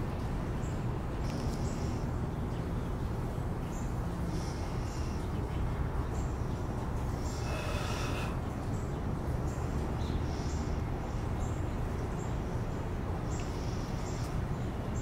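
Outdoor backyard ambience: a steady low rumble with short high chirps repeating every second or so, and a louder, fuller call about eight seconds in.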